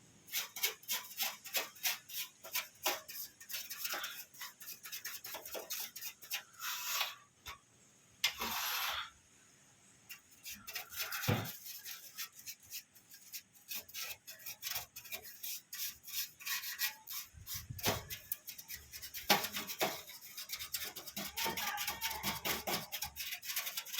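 A small brush scrubbing dust off computer parts, in many quick scratchy strokes. A brief hiss comes about a third of the way through.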